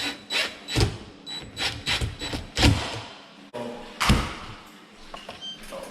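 Dishwasher door-latch work: a quick run of sharp clicks and knocks, about three a second, for the first three seconds. Then comes one loud thud about four seconds in as the dishwasher door is shut, and a few brief faint beeps near the end.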